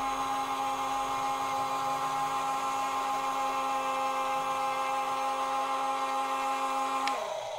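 Electric slewing motor and gearbox of an RC Mercedes-Benz Arocs crane truck whining steadily as the crane turns on its slewing ring. It stops with a click about seven seconds in.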